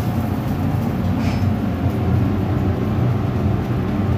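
Commercial kitchen extraction hood fan running with a steady low rumble.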